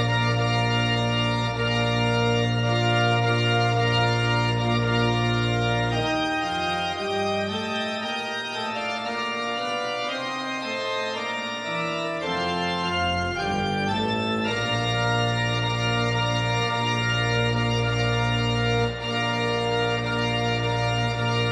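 Church organ playing the postlude: full sustained chords over a deep pedal bass. About six seconds in the pedal bass drops out for a lighter passage of moving lines, and the full sound returns about two-thirds of the way through.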